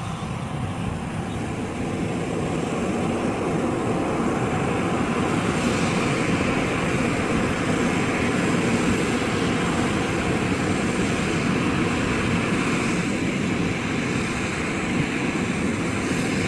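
Turbofan jet engines of a Boeing 737-900ER airliner taxiing, a steady rush that grows a little louder over the first few seconds.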